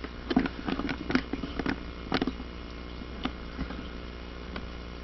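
Small electric motor, salvaged from a stove exhaust blower, humming steadily as it drives the paper belt of a homemade Van de Graaff generator. Irregular light clicks and taps come through the hum over the first three seconds or so.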